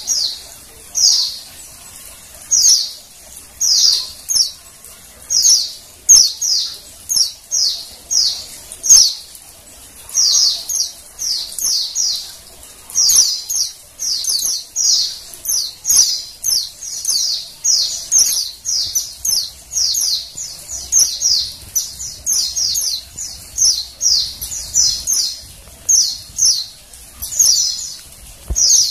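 Female white-eye (pleci) calling: thin, high chirps in short clusters of a few quick notes, repeated about once or twice a second and coming more densely after the first ten seconds. This is the call bird keepers use to lure a male white-eye into singing.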